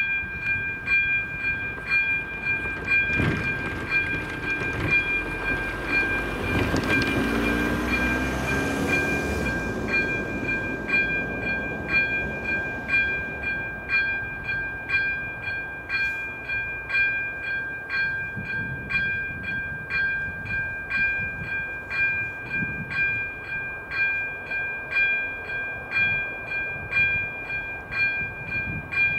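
Czech level crossing's electronic warning bell striking in a steady, even rhythm, its ringing tone held between strikes. A train passes over the crossing, its rumble rising a few seconds in and fading by about ten seconds, while the bell keeps on.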